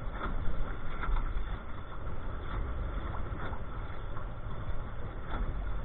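Wind buffeting the boat-mounted camera's microphone as a steady low rumble, with water rushing and splashing along the aluminium hull of a Grumman 17 canoe under sail.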